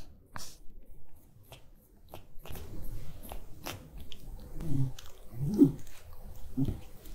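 Shiba Inu licking and smacking its lips, a string of small wet clicks and smacks, with light rustling as the paper face mask on its face is handled. Between about four and a half and seven seconds in come a few short, low, voice-like sounds.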